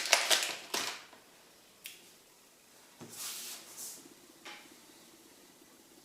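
Plastic ink-cartridge packaging being handled and opened: a quick run of clicks and taps in the first second, then a single click, a short crinkle and one more click spread over the next few seconds.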